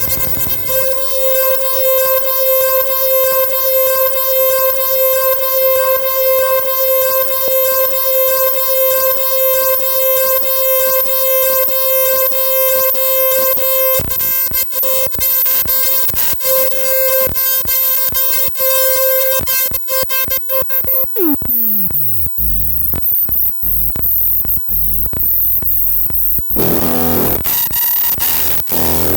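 Electronic music played on hardware synthesizers: a sustained, bright synth drone over a fast stream of clicking percussion. About two-thirds of the way in, the drone falls away in a steep downward pitch sweep into a sparser, noisier passage, and the full texture comes back near the end.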